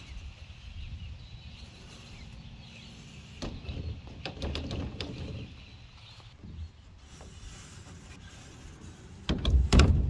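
Greenhouse door with polycarbonate panels swinging shut, with a run of clicks and knocks as the white HDPE plastic latch catches on the frame; a louder clatter of knocks comes near the end.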